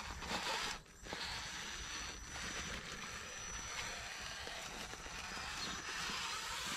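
Electric drivetrain of a radio-controlled rock crawler running faintly as it crawls up a rock face, with a thin steady high tone through it; the sound drops out briefly about a second in.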